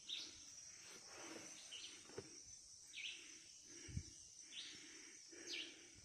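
Faint natural ambience: a steady high insect drone, with a bird giving short falling chirps about every second and a half, and a couple of soft knocks.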